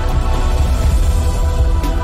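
Background music: sustained tones over a deep, pulsing bass.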